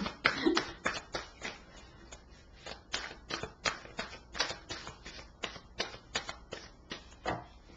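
A deck of tarot cards being shuffled by hand: a run of short, sharp card snaps and slaps, irregular, about three a second.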